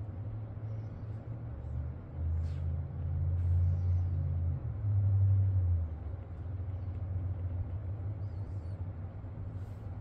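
Low background rumble that swells louder about two seconds in and eases back about six seconds in, with a few faint light ticks above it.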